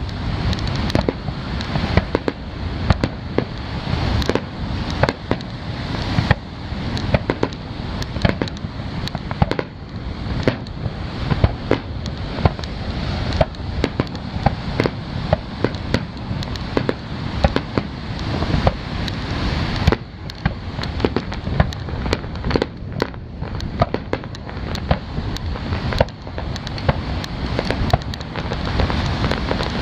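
Aerial fireworks display: shells bursting in quick succession, with many sharp bangs and crackles over a continuous low rumble.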